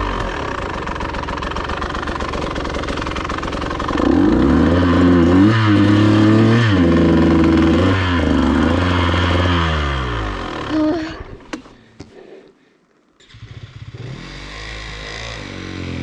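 Dirt bike engine revving up and down again and again as the throttle is worked over rough ground. The engine sound then fades away with a click, there is a brief near silence, and an engine comes back in near the end.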